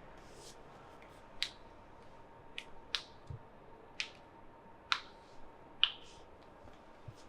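A string of sharp snapping clicks during a massage, about one a second and six or so in all, the loudest near the end, with a soft low thump in the middle.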